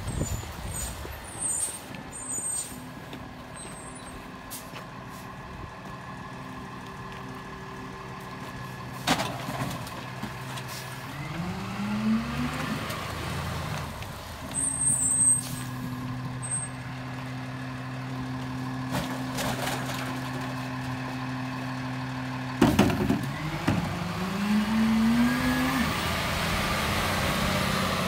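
Freightliner M2106 rear-loader garbage truck's diesel engine running steadily. Twice there is a sharp air-brake hiss, followed by the engine revving up as the truck pulls away.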